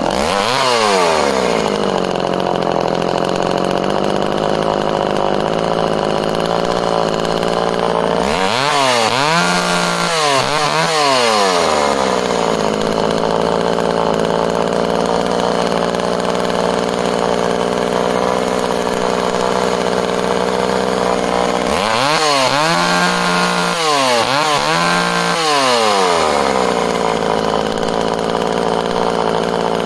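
A small two-stroke Dolmar 101 Hobby top-handle chainsaw (about 32–33 cc) running just after a restart. It drops from high revs to a steady idle in the first couple of seconds. The throttle is then blipped a few times, once about a third of the way in and again about three-quarters of the way in, settling back to idle between.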